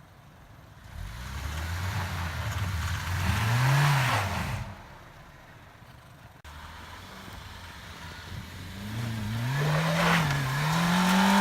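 A car engine revs hard twice, its pitch climbing and wavering, with a hissing rush over it, as a car stuck in snow tries to drive out and the wheels spin without getting free.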